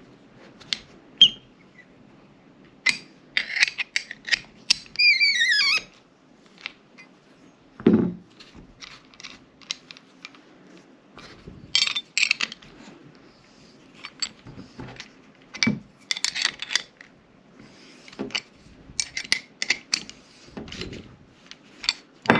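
Scattered metal clicks, taps and clinks of a sight pusher tool being turned and handled on a Glock 17 slide as the sight is forced out of its dovetail, with a short squeak about five seconds in and a low thud about eight seconds in.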